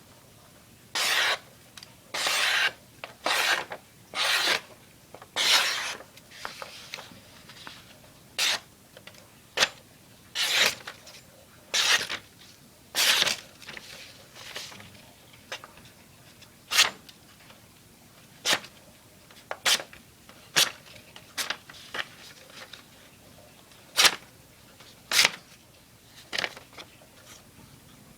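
A sharp knife blade slicing through material in about twenty separate cutting strokes, each a short rasping swish; the strokes are longer in the first half and become short, crisp slices later on.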